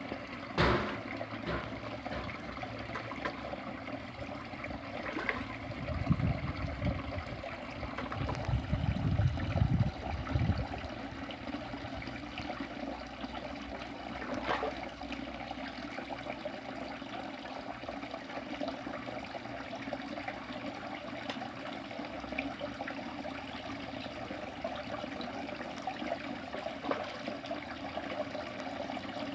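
Water trickling and running steadily into a fish tank, with a few low thumps from about six to ten seconds in.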